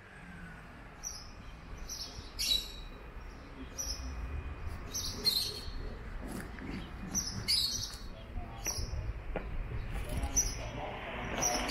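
Small birds chirping, short high-pitched calls repeating irregularly about once or twice a second, over a steady low background rumble.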